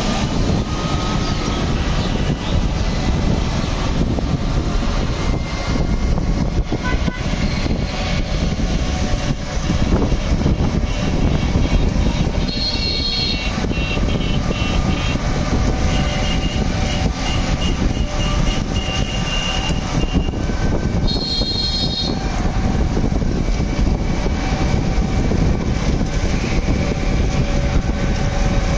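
Street traffic heard from an open vehicle on the move: a steady rumble of road and wind noise, with short vehicle-horn beeps about halfway through and again about three-quarters of the way through.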